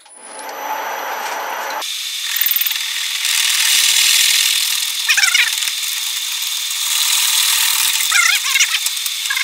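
A 20 mm twist drill boring into a cast aluminium billet turning in a lathe. The lathe runs, then from about two seconds in the drill cuts with a steady high-pitched whine and scraping, with short squeals about five seconds and eight and a half seconds in.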